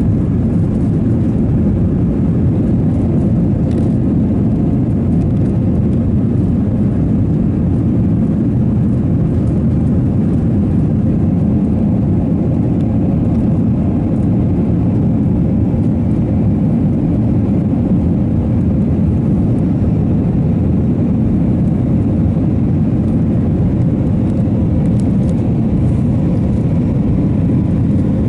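Airliner cabin noise of an Airbus A320-232 in its initial climb just after takeoff: its IAE V2500 turbofans at climb power make a dense, steady low rumble, with a faint steady hum above it.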